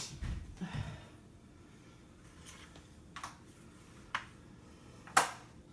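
A few light knocks and sharp clicks from household items being handled during kitchen cleaning: soft thumps near the start, then three sharp clicks spaced about a second apart, the last the loudest.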